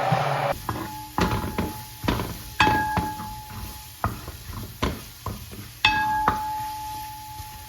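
A steady motor noise cuts off about half a second in, followed by a series of sharp knocks and clinks of kitchenware, several ringing briefly like a metal or glass bowl.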